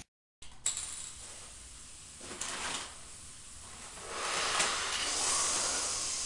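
Quiet hissing and paper-bag rustling from spray-paint fumes being huffed out of paper bags: a short burst about two and a half seconds in, then a longer stretch of hiss and rustle in the last two seconds.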